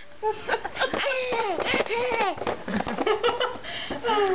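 A person making silly high-pitched vocal noises and laughing, in a string of short calls that slide up and down in pitch.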